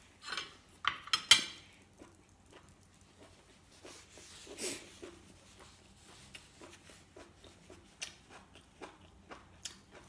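Metal spoon and fork clinking sharply against a ceramic plate a few times in the first second or two, then small chewing and mouth noises while eating, with a short breathy sound near the middle.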